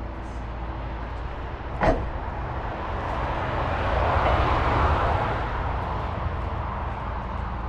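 A vehicle engine runs with a steady low hum. A rushing noise swells and fades through the middle, and a single sharp knock comes about two seconds in.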